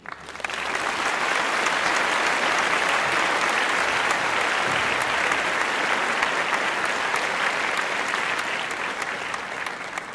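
Audience applauding, swelling up within the first second, holding steady and beginning to fade near the end.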